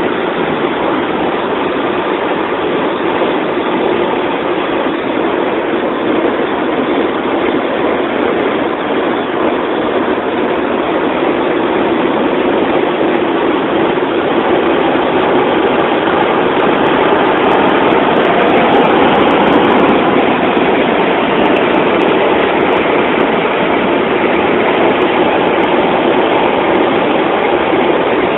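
Steady road and engine noise heard from inside the cabin of a Volvo car cruising at highway speed.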